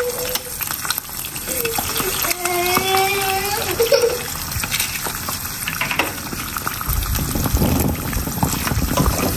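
Eggs frying in oil in a nonstick pan, a steady sizzle, with a few sharp taps as an egg is cracked open with a knife and dropped in.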